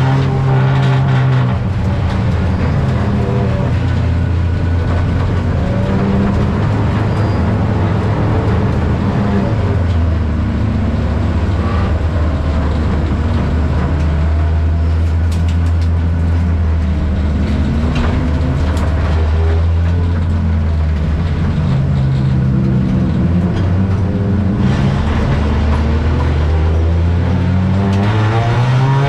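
Race car's engine heard from inside the stripped cabin, running at low, steady revs through most of it, with the revs climbing near the end.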